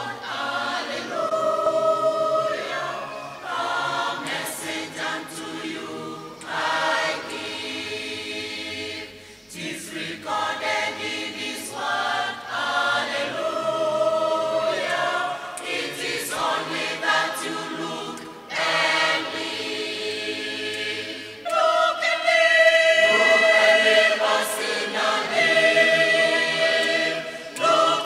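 Mixed church choir of men and women singing together, in sung phrases with short breaks between them.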